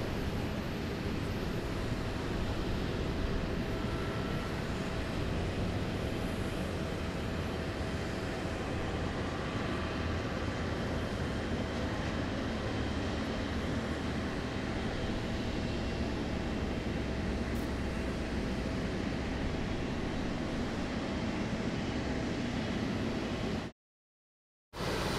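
Steady noise of a jet airliner, an even rumble and hiss with a faint steady hum, cutting out to total silence for about a second near the end.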